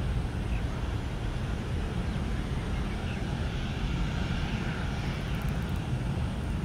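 Airbus A320 airliner's jet engines, a steady low rumble with a wash of noise over it.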